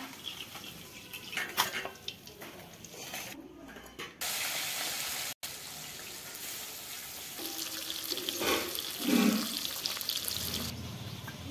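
Fish steaks frying in hot oil in an iron wok: a steady sizzling hiss that gets louder about four seconds in, with a few clicks and scrapes of the spatula against the pan.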